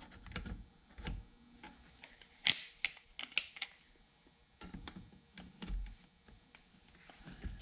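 Scattered sharp clicks and clacks of hand tools being handled: channel-lock pliers being picked up and fitted onto a chainsaw part, metal knocking on metal and plastic at irregular intervals.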